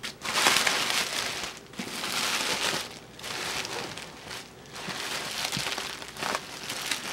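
Plastic bubble wrap crinkling and crackling in a run of bursts as hands pull it back and handle it.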